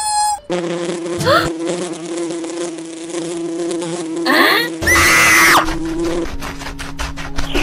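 Fly buzzing sound effect, a steady drone that drops to a lower pitch about six seconds in. A loud shrill cry cuts across it about five seconds in.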